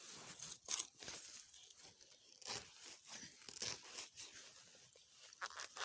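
Irregular rustling, crunching and tearing of plant material being handled, in uneven crackly strokes.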